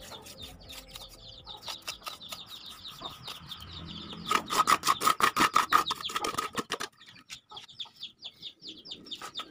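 Chickens clucking in a quick run of short calls, with a louder burst of rapid clucking from about four seconds in that lasts over two seconds.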